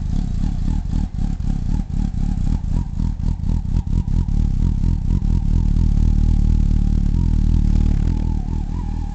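2003 Yamaha R1's inline-four engine running steadily. Through the first half it has a rapid, uneven pulsing; it then runs smoother and a little louder.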